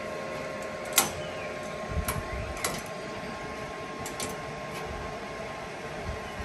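Locking pliers being set and clamped onto steel chassis metal, with metallic clicks and snaps. The sharpest snap comes about a second in, a few lighter clicks follow around two seconds in, and fainter ones near the end, over a steady background hum.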